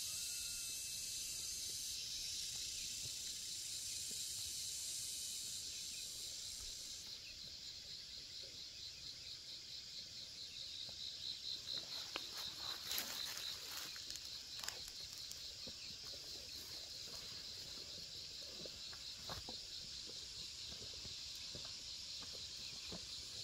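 Steady outdoor insect chorus, a high hiss with a fast pulsing trill. About halfway through there is a short spell of rustling and crackling, like grass or brush being handled.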